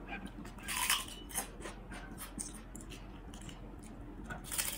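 Crisp salt-roasted prawn crackers crackling as they are handled and broken, with a louder cluster of crunches about a second in and again near the end as one is bitten and chewed.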